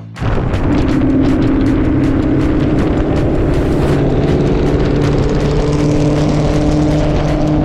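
A car driving at speed: a steady engine drone under heavy wind and road noise, its pitch holding nearly level and edging up slightly in the second half.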